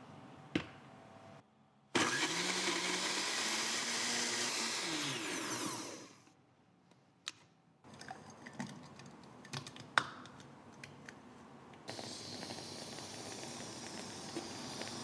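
A countertop drink blender runs loudly for about four seconds, its motor pitch rising and then falling as it winds down. Scattered clicks and knocks follow, and a steady hiss starts near the end.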